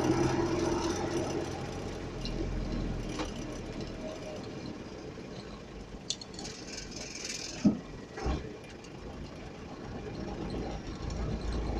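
Vehicle engine running steadily with a low rumble, and a short pitched sound about two-thirds of the way through.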